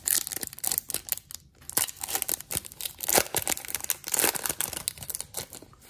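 Foil wrapper of a 2020 Topps Chrome baseball card pack being torn open and crinkled by hand, a dense run of irregular crackles.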